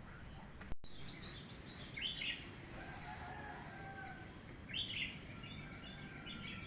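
Faint farmyard chickens calling: two short high calls and a drawn-out, faint crow between them. A brief click and dropout comes just under a second in.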